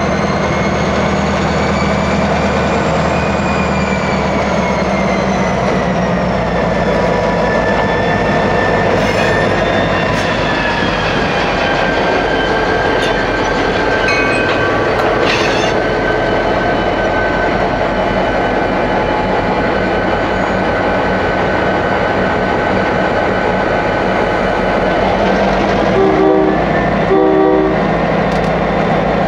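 Diesel-electric freight locomotives running slowly past close by, pulling boxcars: a steady engine drone whose pitch eases down a few seconds in, with a few brief sharp metallic sounds from the train. Near the end comes two short locomotive horn blasts.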